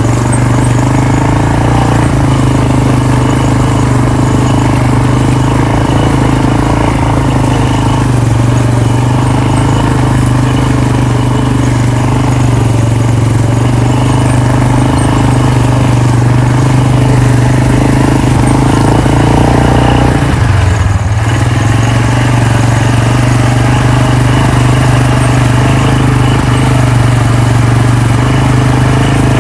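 Four-wheeler (ATV) engine running steadily under way. About two-thirds through, the engine note dips briefly and then picks back up.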